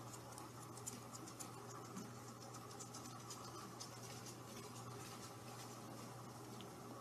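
Faint, light scratching and ticking from a kitten playing with a pom-pom wand toy on a fabric sofa, over a low steady hum.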